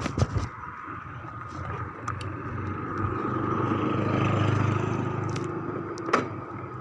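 A motor vehicle passing by on the road, its engine and tyre noise building to a peak about four to five seconds in and then fading away. A sharp click sounds near the end.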